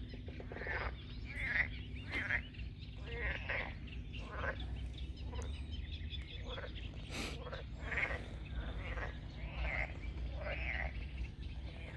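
A chorus of frogs calling, with short quacking croaks coming about once a second and several frogs overlapping, over a low steady rumble.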